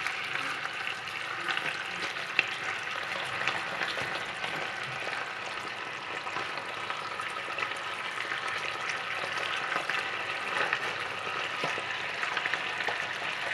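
Pork belly pieces sizzling steadily in a wok of reducing fish-sauce and sugar marinade, with small scattered crackles. The skin side is being fried to a deep amber before braising.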